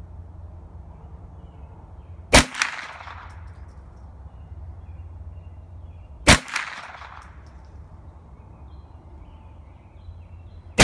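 Ruger 10/22 Takedown .22 LR rifle firing single shots, three in all about four seconds apart, the last right at the end. Each sharp crack is followed about a quarter second later by a fainter second crack.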